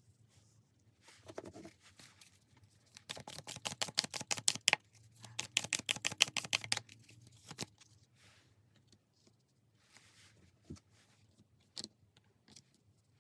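A deck of tarot cards being shuffled: two runs of quick, rapid clicking, each about a second and a half long, followed by a few single soft taps as cards are handled.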